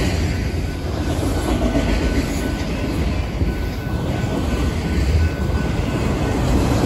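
BNSF freight train cars rolling past close by: a steady rumble of wheels on rail, with a faint thin wheel squeal that comes and goes.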